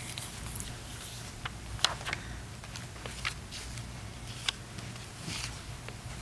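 Quiet room tone with a steady low hum, broken by a few faint sharp clicks and light rustles, as papers and photos are handled.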